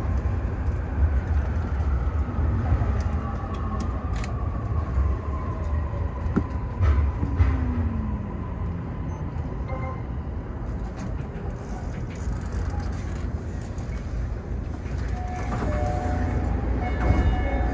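Toei Mita Line 6500 series electric train braking into a station: the whine of its traction motors falls steadily in pitch over a low running rumble, with scattered clicks. Near the end a few steady tones come in as it slows to a halt.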